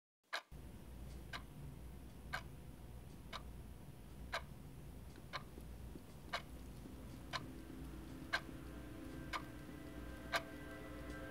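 A clock ticking slowly, one sharp tick a second, over a low steady hum. Faint sustained tones come in about seven seconds in and grow under the ticks.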